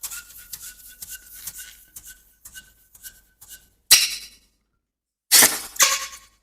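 Rubber balloon squeaking as it is rubbed, short squeaks on one pitch about twice a second, then a balloon popping with a sharp crack about four seconds in, and another loud burst of popping near the end.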